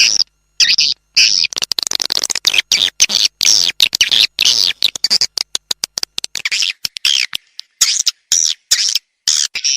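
Swiftlet call-lure recording: rapid, high twittering chirps of edible-nest swiftlets in quick runs, cut by many short dead silences. It is a calling sound played to attract swiftlets to a nesting house.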